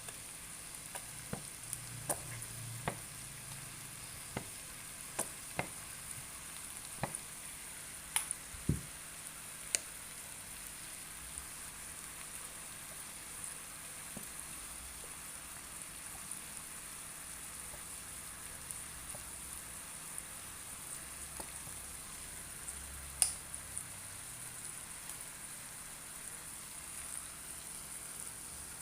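Food frying and sizzling in a pan, a steady high hiss. Several clicks and taps of a utensil stirring come in the first ten seconds, and one sharper knock comes later.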